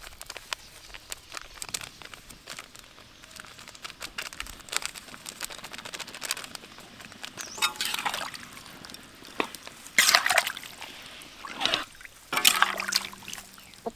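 A metal ladle stirring raw chicken wings through a wet curry marinade in a wok. Faint taps and scrapes at first, then, from about eight seconds in, three louder wet sloshing strokes.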